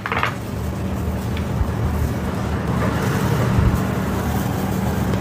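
Steady low background rumble with a constant low hum, the kind of noise that comes from traffic or running machinery.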